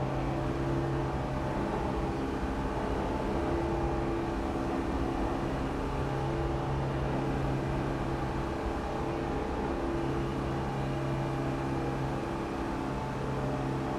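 A steady machine-like hum with a few held low tones, running evenly throughout.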